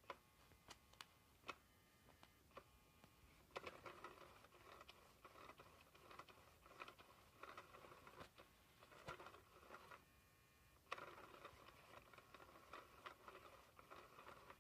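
Faint crinkly rustling from the nylon cover of a SmartyKat Hot Pursuit cat toy as its hidden wand moves underneath. It comes in two long stretches with a short pause between them, after a few light clicks at the start.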